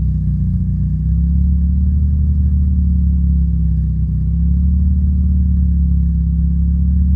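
1987 Mazda RX-7 Turbo II's turbocharged twin-rotor 13B rotary engine running with a steady, even low drone and no stumble.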